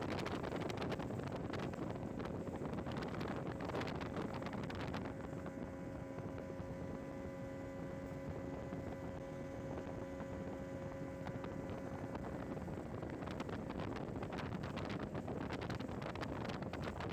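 A motorboat under way: a steady engine drone under wind buffeting the microphone, with a steady, pitched engine hum standing out for several seconds in the middle.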